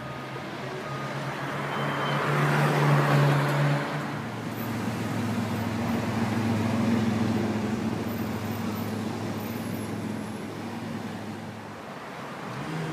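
Street traffic: a passing car's noise swells and fades about two to four seconds in, followed by a steady low engine hum.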